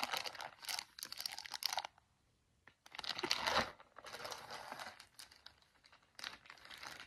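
A clear plastic bag crinkling and rustling as a pair of heavy denim jeans is handled and slid back into it, in several bursts with a short silent pause about two seconds in.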